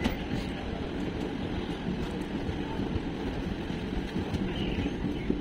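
Passenger train rolling slowly along a station platform, heard from an open carriage doorway: a steady rumble of wheels on the rails with a few faint clicks.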